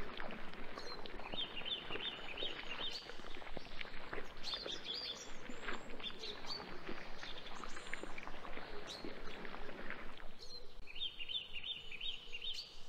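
Quicksand squelching and bubbling with many short wet plops, thinning out about ten seconds in. Birds chirp repeatedly in the background.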